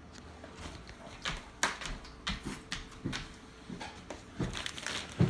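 Irregular knocks and rustles of a large cardboard box and the packed punching bag inside it being handled and shifted.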